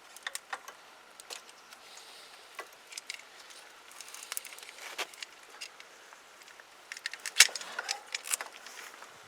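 Scattered light clicks, taps and small metallic knocks from hand tools and parts being handled, with a denser, louder run of clicks about seven to eight and a half seconds in.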